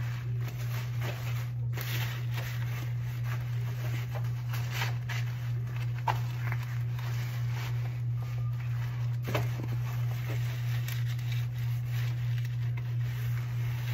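A steady low hum, with faint, scattered rustles and taps of things being handled.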